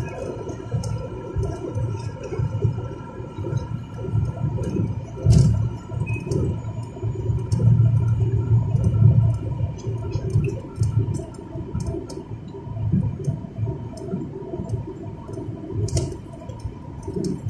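Road and engine noise inside a moving car's cabin at highway speed: an uneven low rumble that swells and fades, with a thin steady whine above it.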